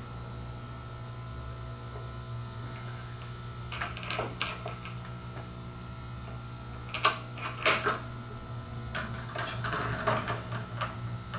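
Metal tools clinking and rattling as they are handled, in scattered groups with the loudest clinks about seven to eight seconds in, over a steady low hum.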